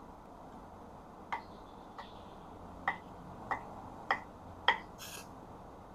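Kitchen knife chopping soft ripe jackfruit into small dice on a wooden chopping board: six separate blade knocks on the wood about every half second, the last the loudest, then a short scrape.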